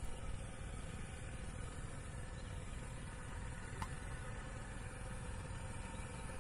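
Distant airliner jet engines running steadily at idle: a low rumble with a faint steady whine. A brief high chirp sounds about four seconds in.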